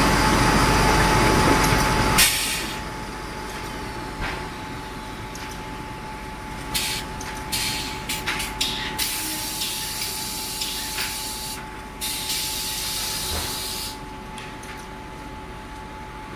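Automatic band saw paper roll cutting machine running. It hisses loudly for about the first two seconds, then settles to a steady hum with a thin whine. Through the middle come a run of clicks and knocks and two spells of high hissing.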